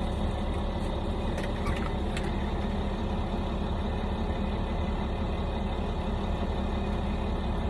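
Steady low mechanical hum, with a few faint clicks about a second and a half to two seconds in.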